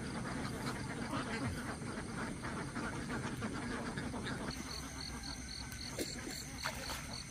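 A flock of domestic ducks quacking, busy at first and thinning out about halfway through, as a regular high-pitched chirp starts up, about three a second.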